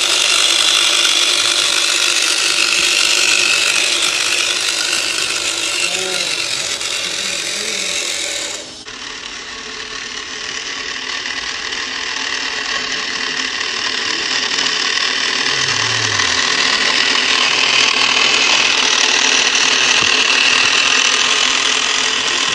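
A 1:18-scale six-wheel RC truck's electric motor and gearbox whining steadily as it drives over loose gravel. The sound dips sharply about a third of the way in, then builds again.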